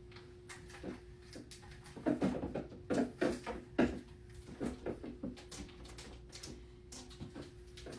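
Irregular light knocks, clatters and rustles of things being handled and moved about in a small room, busiest about two to four seconds in, over a faint steady hum.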